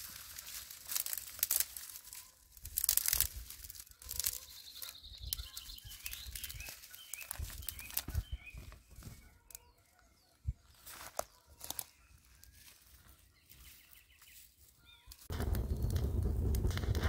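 Dry tinder being torn apart and crumpled by hand, in short crinkling, tearing bursts. A steady low rumble starts suddenly near the end.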